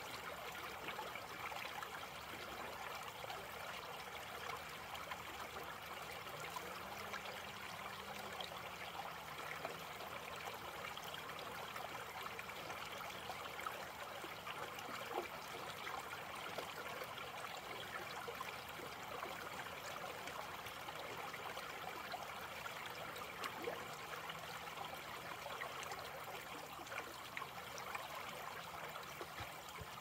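Small shallow creek trickling and babbling over a low riffle of stones, a steady flow with small splashes scattered through it.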